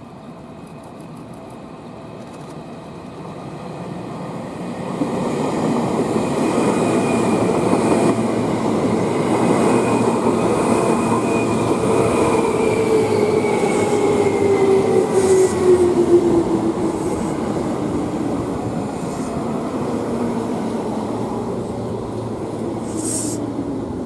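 Seibu New 2000 series ten-car electric commuter train approaching and running past at speed: the rumble of wheels on rail grows loud about five seconds in and stays up as the cars go by. A motor whine in the sound slides steadily down in pitch as the train passes.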